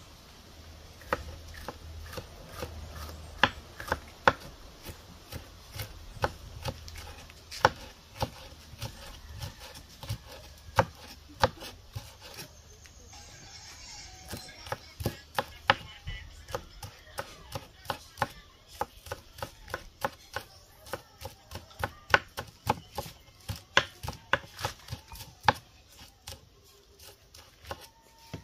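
Kitchen knife chopping seasoning vegetables on a wooden cutting board, a series of sharp taps. The taps are sparse and uneven at first, then come quicker and steadier from about halfway.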